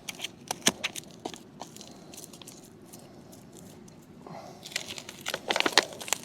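Crackling and crunching as a packet of partly frozen mackerel bait is handled and opened: scattered clicks, busier in the last two seconds.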